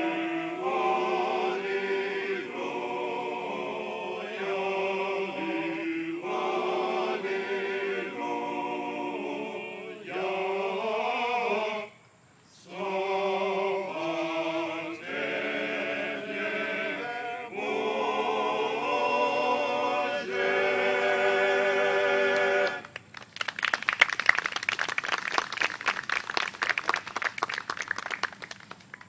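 Men's choir singing a cappella in several voice parts, with a brief break about twelve seconds in. The song ends about three-quarters of the way through, and applause follows.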